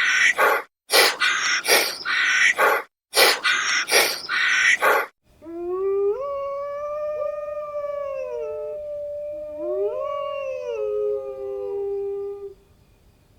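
A dog or wolf giving a run of short barks for about five seconds, then two long howls that rise and fall in pitch.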